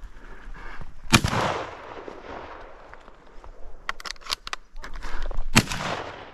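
Two shotgun shots at a flying duck, about four and a half seconds apart, each echoing off the hills as it fades. A quick run of sharp clicks comes between them.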